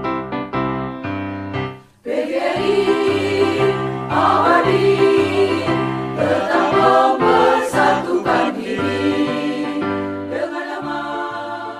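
Keyboard playing a run of separate notes. About two seconds in there is a brief break, and then a choir starts singing over an instrumental accompaniment.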